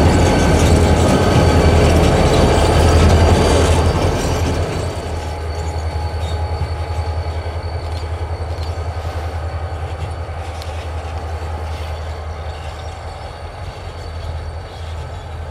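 Two EMD SD40-2 diesel locomotives running past close by, their engines a loud low drone for the first four seconds or so, then quieter and steady as the units move off along the yard track. Thin steady high-pitched wheel squeal runs underneath.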